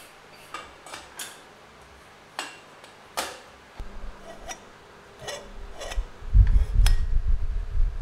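Metal parts clinking and tapping as tubing is handled and fitted onto the frame jig's cone fixtures: about eight light, separate knocks. A low rumble of handling comes in near the end.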